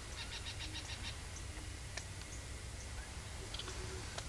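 Quiet outdoor ambience with small animal calls. A quick run of about eight short, high ticking notes comes in the first second. A few short single-pitched low notes are spread through the rest, and there are a couple of sharp clicks.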